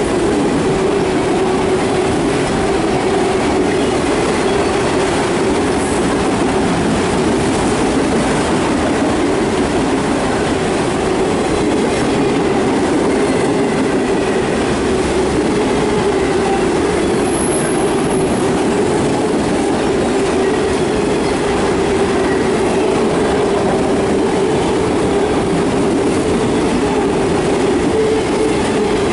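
Autorack freight cars of a CSX train rolling past, a steady, loud rumble of steel wheels on rail that holds without a break.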